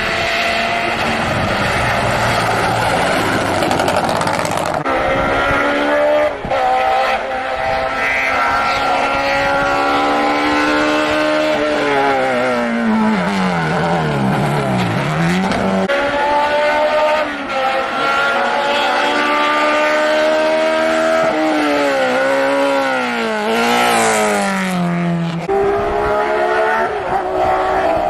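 Hillclimb race car engines at full throttle, one car after another: the revs climb and drop back at each gear change. Midway the revs fall steadily as the car brakes and downshifts for a bend, then climb again as it accelerates away. A different engine takes over about 5 s in and again near the end.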